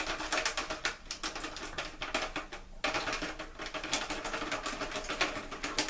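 Beef broth poured into a thin disposable aluminum foil baking pan, the stream pattering and crackling on the ridged foil bottom as rapid ticks. The sound breaks off briefly a little under three seconds in, then carries on.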